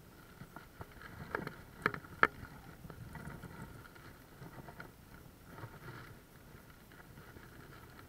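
Water sloshing, with a few sharp knocks between about one and two and a half seconds in; the loudest knock comes a little after two seconds.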